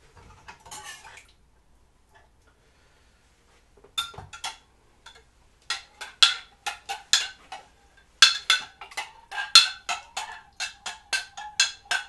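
A metal spoon stirring dextrose into hot water in a glass measuring cup, clinking against the glass. The clinks start about four seconds in and grow faster and louder, about four a second near the end, as the priming sugar dissolves.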